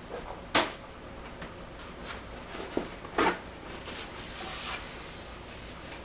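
Hard clunks of tools and metal appliance parts being handled: a sharp knock about half a second in, a softer one just before a second sharp knock about three seconds in, then a brief scrape.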